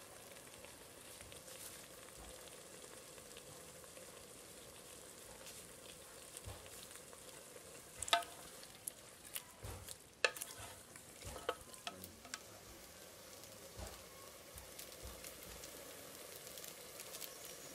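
Food frying with a faint, steady sizzle. Several sharp clicks and knocks come mostly in the middle, the sound of a utensil stirring and tapping the pan.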